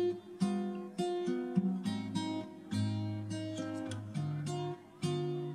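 Background music: an acoustic guitar playing a sequence of plucked notes and chords at an even pace.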